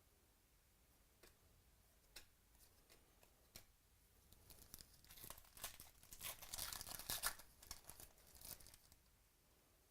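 Foil trading-card pack being torn open and its wrapper crinkled, preceded by a few light ticks of card handling.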